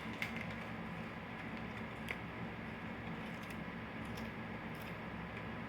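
Faint eating sounds: a few light, scattered clicks and small handling noises over a steady low room hum.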